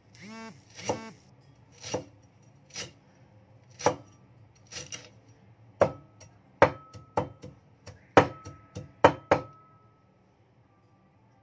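Cleaver chopping lemongrass on a thick wooden chopping board. The chops come singly about once a second, then a quicker, louder run follows, and the chopping stops about ten seconds in.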